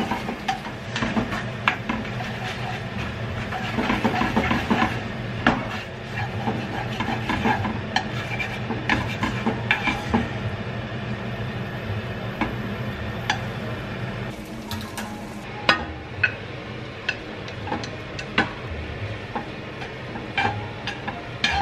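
Glass noodles being stirred with wooden chopsticks in a pot of simmering soy-sauce glaze: a sizzling bubble with many short clicks and taps of the chopsticks against the pan, over a steady low hum.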